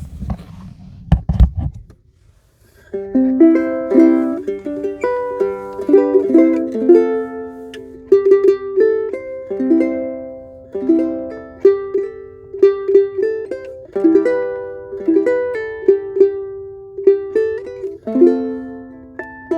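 Martin 3M Ditson dreadnought acoustic guitar strung with Aquila B-Black strings, played as a picked melody of single notes over lower notes. Low thumps sound in the first two seconds, and the playing starts about three seconds in after a short pause.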